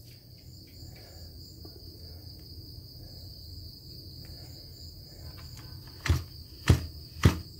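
A quiet background with a steady high-pitched chirr. Near the end come three sharp clicks about half a second apart as hands work the carburettor controls of a Kawasaki TH34 brush cutter's two-stroke engine, getting it ready to pull-start.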